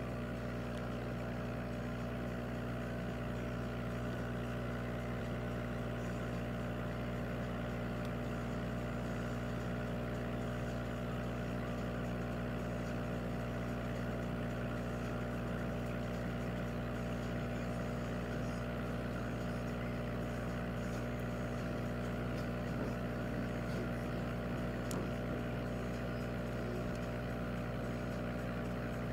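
Aquarium air pump humming steadily, with the air bubbles from its line streaming up through the tank water.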